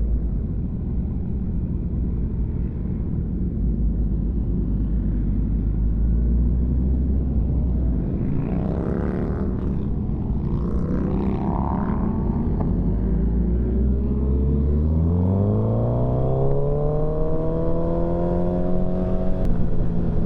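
Motorcycle engine running steadily at low revs, then, about fifteen seconds in, revving up with a rising pitch as the bike accelerates and holding a higher steady note near the end.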